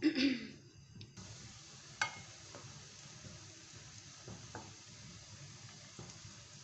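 Besan pakora batter deep-frying in hot oil in a wok: a steady sizzle that starts about a second in. A few light clicks of the spoon against the pan are heard over it.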